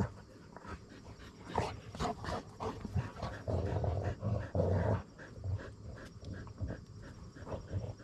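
A dog panting in quick repeated breaths, louder and rougher for a stretch about halfway through.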